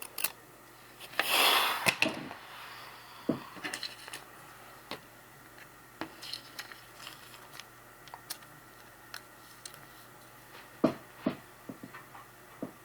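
Trading cards and their packaging being handled: scattered light clicks, taps and rubs. A brief louder hiss comes about a second and a half in.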